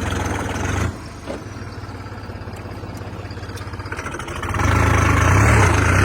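New Holland 3630 tractor's diesel engine running while the tractor works in deep mud. It eases off about a second in, then revs up hard about four and a half seconds in as the tractor tries to drive out.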